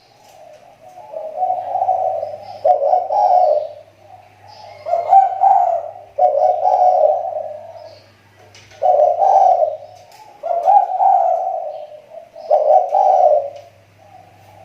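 Spotted dove (tekukur) kept as a decoy bird, cooing a run of repeated, roughly one-second phrases with short pauses between them; the keeper says its voice is getting better after a slump.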